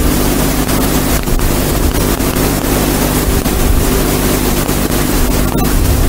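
Loud steady hiss with a constant low hum underneath, with a couple of faint clicks.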